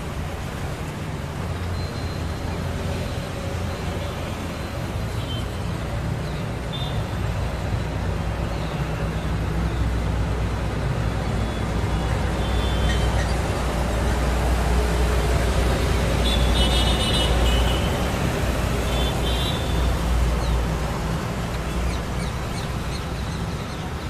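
Steady city traffic rumble from the road below, swelling louder through the middle and easing near the end, with a few brief high-pitched sounds.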